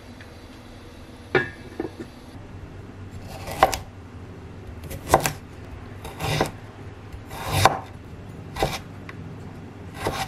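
Kitchen food-preparation strikes: a sharp knock near the start, then six dull impacts about a second and a half apart. Some of them swell briefly just before each hit.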